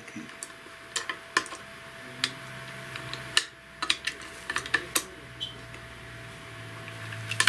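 Hard plastic model-kit parts clicking and tapping against each other as a tight-fitting piece is pressed and worked to snap into place: a dozen or so irregular sharp clicks.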